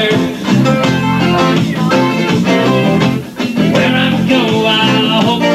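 Small live band playing a song on guitars, with chords strummed in a steady rhythm.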